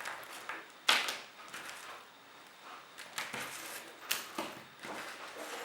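Irregular clicks, knocks and rustles of small objects being handled, the sharpest about a second in, with several more through the rest.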